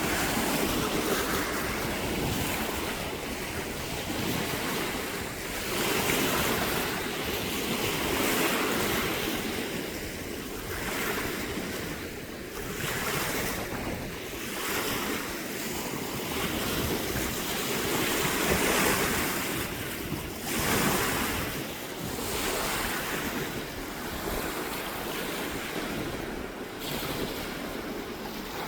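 Sea waves washing in and drawing back, swelling and easing every few seconds, with wind buffeting the microphone.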